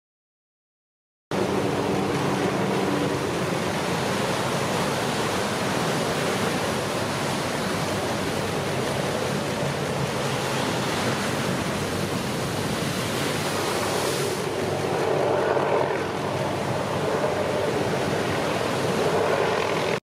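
Steady roar of huge breaking ocean waves and whitewater. It cuts in suddenly about a second in and swells a little louder past the middle.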